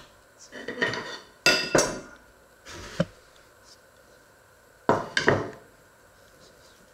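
Porcelain plate clinking and knocking as it is taken out and set down on a wooden counter: several sharp clatters, a loud cluster in the first two seconds and another about five seconds in.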